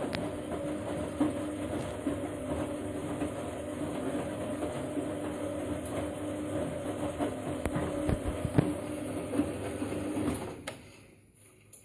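Siemens washing machine running a wash, the motor humming steadily as the drum turns with small knocks and clatter. Near the end the drum slows and stops, and the sound fades to near quiet.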